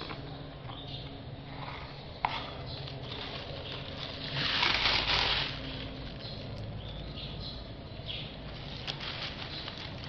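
Handling noises from work at the mold box: scattered light clicks and scrapes, a sharp click about two seconds in, and a brief louder rustling hiss around the middle, over a low steady hum.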